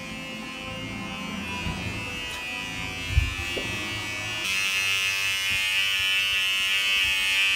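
Small electric hair trimmer buzzing steadily as it is used on an eyebrow. The buzz grows louder about four and a half seconds in, and a single thump comes about three seconds in.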